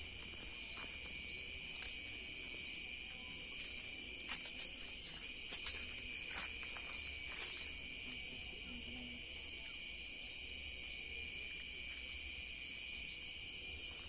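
Nighttime chorus of crickets, a steady high chirring without a break, with a few brief clicks and rustles scattered through it.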